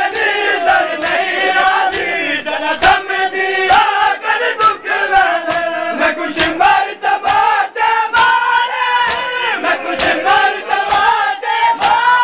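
Group of male mourners chanting a noha together, many loud voices overlapping, with frequent sharp slaps of hands beating on chests (matam).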